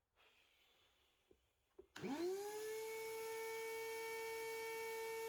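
Wet-and-dry vacuum's motor switched on about two seconds in, spinning up with a rising whine and settling into a steady hum. It runs again after its broken wire was bodged back together.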